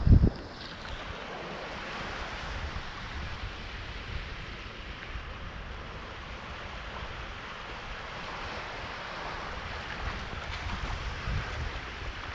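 Ocean surf washing on the shore as a steady hiss, with wind gusting on the microphone as a low rumble. A loud thump right at the start.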